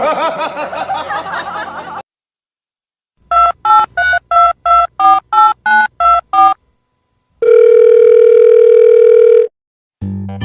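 Touch-tone phone being dialled: about a dozen quick keypad beeps, then one steady ring tone about two seconds long. Before the dialling, about two seconds of a wavering, voice-like sound.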